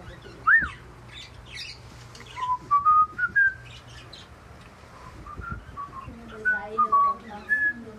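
Cockatiels whistling and chirping. A quick rising-and-falling whistle comes about half a second in, a run of short whistles climbs in pitch a few seconds later, and more whistles follow near the end, with scattered high chirps between them.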